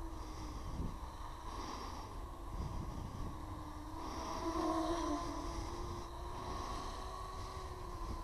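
Home-built quadcopter's motors and propellers humming in flight on a 3S battery, the hum swelling and easing as the throttle changes and loudest about four to five seconds in. Wind rumbles on the microphone underneath.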